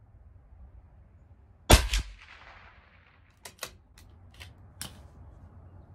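A CZ 457 LRP bolt-action rifle fires a single shot of Aguila .22 Interceptor, a supersonic 40-grain .22 LR round, giving a loud sharp crack with a second crack about a quarter second later. A few sharp metallic clicks follow over the next few seconds as the bolt is worked.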